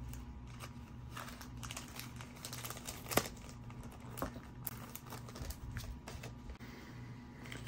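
Light clicks and crinkles of plastic coin holders and sleeves being handled and shifted, with one sharper click about three seconds in. A steady low electrical hum runs underneath.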